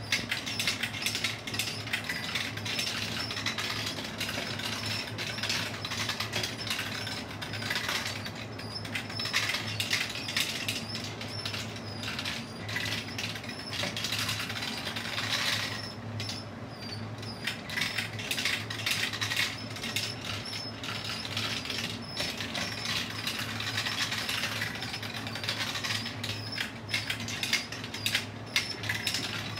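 Plastic marble run in motion: marbles rolling, clicking and clattering through plastic tubes, spirals and track pieces in a quick, uneven stream of small clicks, over the steady low hum of the chain lift's motor.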